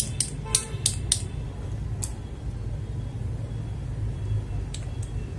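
Mechanical keyboard switches clacking as they are pressed and released: about five sharp clacks in the first two seconds and two more near the end, over a steady low hum.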